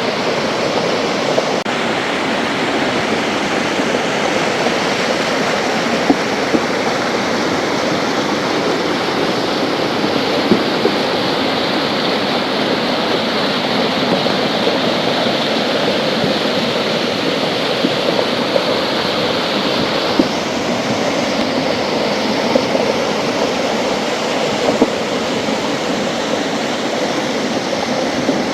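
Steady, dense rush of water noise, as in a heavy downpour or flowing floodwater, with a few sharp ticks scattered through it.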